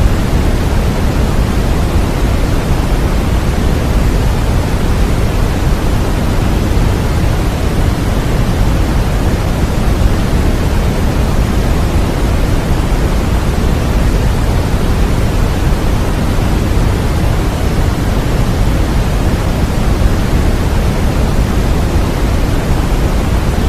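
Steady synthetic noise for baby sleep: a constant, even hiss weighted toward the low end like pink noise, with no changes or events.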